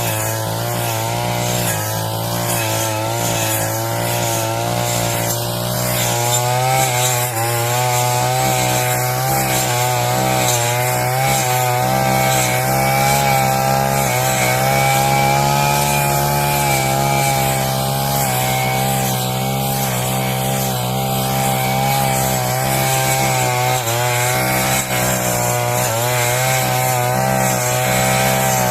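Brush cutter fitted with a circular blade, its engine running at high speed while it cuts grass, the pitch wavering slightly as the load changes.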